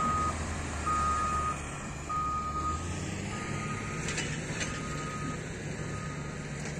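Reversing alarm on heavy road-building machinery beeping steadily, about one long beep a second and growing fainter, over the low rumble of a diesel engine that drops away about halfway through.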